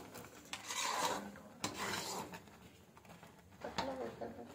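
A spoon scraping and rubbing against a pan in a few short strokes, scooping out thick melted jaggery, with a sharp click about a second and a half in.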